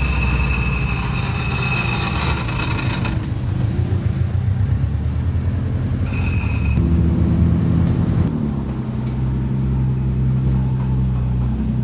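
Car engine and exhaust running at low revs, rising a little past halfway and settling back down. A high steady tone sounds over it for about the first three seconds and again briefly past halfway.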